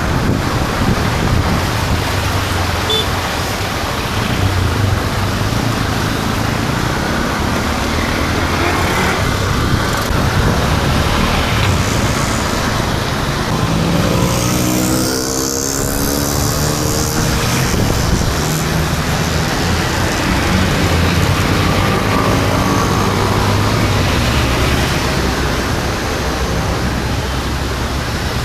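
Steady road traffic noise. A motor vehicle passes close about halfway through, its engine note sliding in pitch.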